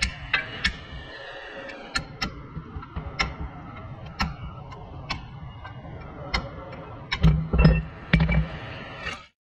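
Hammer blows ringing on the steel front steering knuckle of a Kia Optima, struck to knock the ball joint loose: sharp metallic strikes about once a second, then a quicker run of heavier blows near the end.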